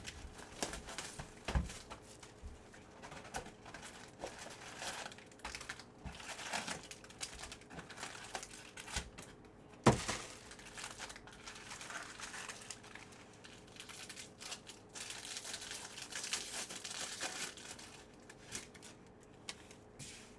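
Plastic wrapping and trading-card pack wrappers crinkling and tearing as a card box is opened, with one sharp snap about halfway through.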